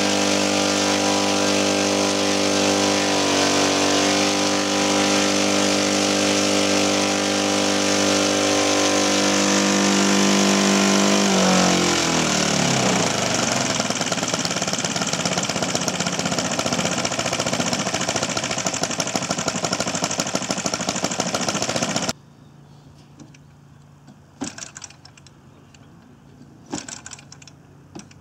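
Kolm EZ65 four-stroke petrol engine in a large model warplane, turning a 22x12 Mejzlik propeller. It runs at a steady speed, and about twelve seconds in the note sinks into a rougher, noisier sound. About three quarters of the way through, the sound cuts off sharply, leaving quiet with a few brief knocks.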